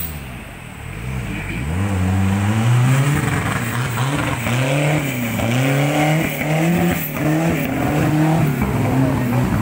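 Off-road 4x4 truck's engine revving hard: the pitch climbs early on, then rises and falls over and over, a little more than once a second, as the throttle is worked.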